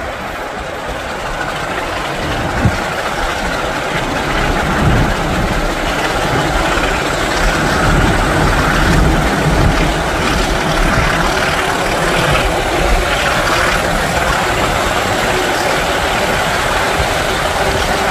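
A diesel-hauled train running, heard from an open carriage window: a steady rush of wheels on the rails and wind, with the engines of the two locomotives at the head, a Class 24 and a Class 26, working ahead. It grows louder over the first eight seconds or so, then holds steady.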